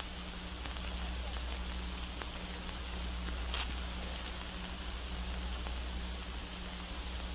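Steady hiss and low hum of an old archival film soundtrack, with a few faint crackles.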